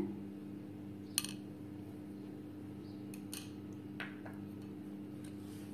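A few light clicks and clinks of a measuring spoon and whisk against a glass mixing bowl, the sharpest about a second in, over a steady low background hum.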